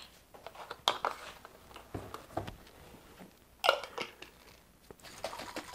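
Small glass mustard jar being handled: a few light clicks and knocks, then a sharper clink a little after halfway as the lid is put on. Near the end comes a fine, rapid scratching as the lid is screwed down.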